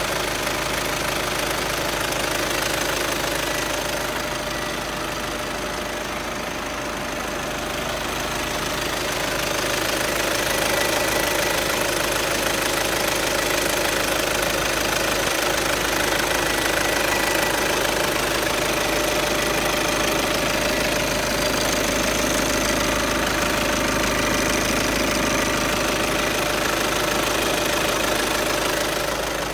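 Volkswagen Tiguan engine running steadily, carrying steady tones over its noise, a sound the owner finds strange. It gets slightly louder after about ten seconds.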